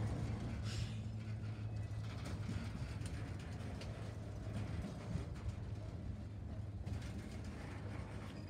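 Freight train cars rolling slowly past on the rails: a steady low rumble with scattered light clicks from the wheels and running gear.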